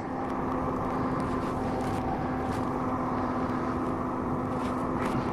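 Steady engine and road noise inside a moving vehicle's cabin, with an even low hum that holds one pitch.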